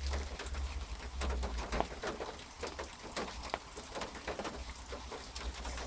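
Rain dripping and pattering: scattered irregular small ticks over a steady low rumble.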